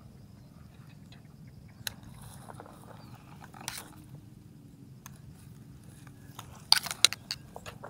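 Tall grass and weed stalks rustling and crackling as they are pushed through and bent, with a few sharp snaps and a louder cluster of crackles near the end.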